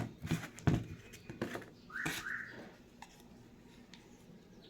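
Hands handling a small plastic part on a work surface: a few knocks and clicks in the first second and a half, then a short scrape about two seconds in.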